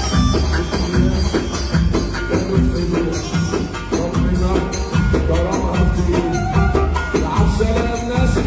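Upbeat music with a fast, even percussion beat and heavy bass under a melodic line.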